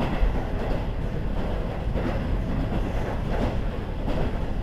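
KiHa 40 series diesel railcar KiHa 40-587 running on the line: a steady low rumble with recurring surges of rail noise.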